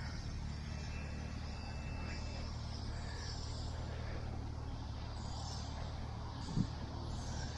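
An off-road vehicle's engine idling steadily, with a brief low bump about six and a half seconds in.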